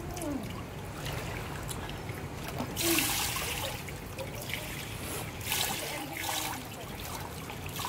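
Swimming-pool water trickling and lapping into the grated overflow gutter at the pool edge. Several brief splashes come over it, the loudest about three seconds in.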